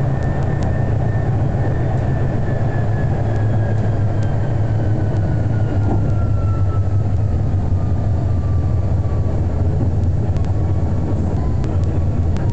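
Electric tram running on its rails, heard from inside the car just behind the driver's cab: a steady low hum and rumble, with a thin electric motor whine that slowly falls in pitch as the tram slows toward a stop. A few faint clicks come near the start and again near the end.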